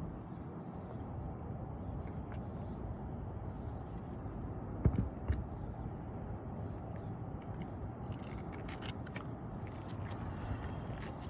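Scraping and clicking of hand work on asphalt roof shingles, with two sharp knocks about halfway through, over a steady low rumble.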